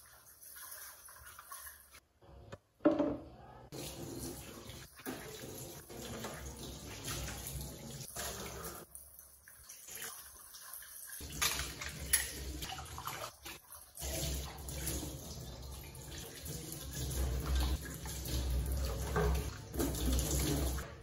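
Kitchen faucet running into a stainless steel sink while dishes are rinsed under the stream, the water splashing off a pot and bowl. It cuts out briefly a few times, with one sharp knock about three seconds in.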